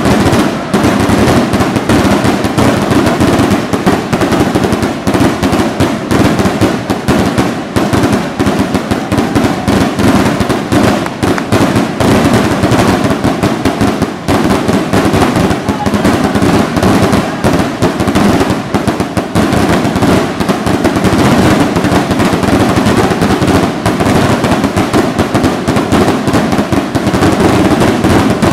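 Barrage of fireworks rockets bursting in the air: a dense, unbroken run of rapid, overlapping bangs with no pause.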